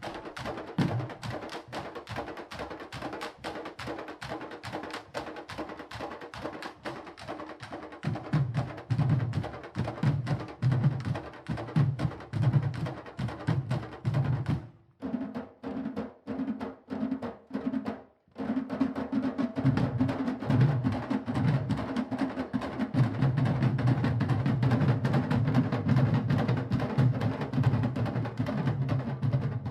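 Candombe drum ensemble (chico, repique and piano drums) playing a fast, dense rhythm, with sticks clicking on the wooden drum shells over deep piano drum tones. The playing drops away twice, briefly, about halfway through and then comes back in full.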